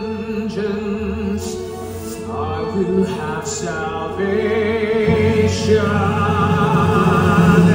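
Theatre pit orchestra playing a dramatic passage of the musical's score, with held wavering high lines over a steady bass, swelling louder about halfway through.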